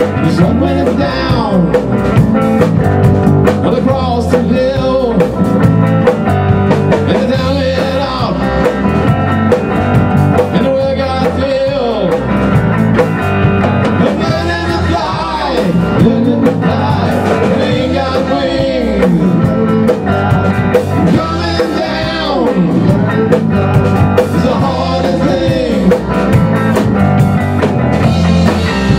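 Live rock band playing: a single-cut electric guitar, an electric bass and a Tama drum kit, with a steady drum beat and a lead line that slides up and down in pitch over it.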